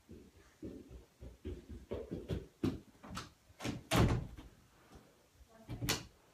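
Irregular knocks and thumps of someone moving about the house, with door-like bangs. They grow louder over the first four seconds, with a heavy bang about four seconds in and another near the end.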